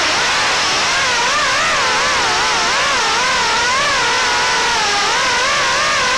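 Brushless motors and propellers of a 3-inch FPV quadcopter whining, the pitch wavering up and down as the throttle changes, over a steady hiss.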